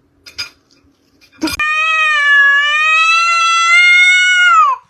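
A cat giving one long, drawn-out meow of about three seconds, holding its pitch and dropping at the end. A short sharp click comes just before it.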